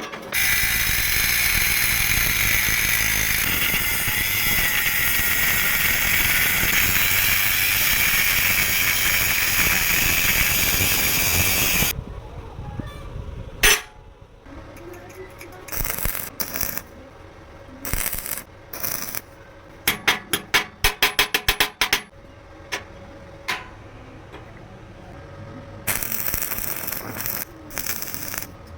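Angle grinder running against metal for about twelve seconds, then it stops. Separate metallic clicks and knocks follow, with a quick run of rapid clicks a little past the middle and a brief noisy burst near the end.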